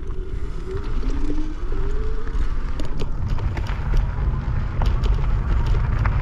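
E-bike riding over a gravel road: steady tyre rumble with scattered ticks of gravel under the wheels, and wind rumbling on the microphone.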